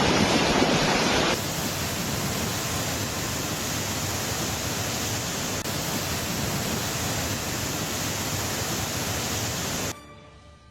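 Fast, heavy river current rushing and breaking on the bank: a steady, dense wash of water noise that cuts off near the end.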